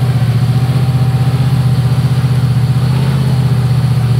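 Jeep Grand Cherokee's 4.7-litre V8 running steadily at low revs, with no revving, and a faint steady whine above the engine note.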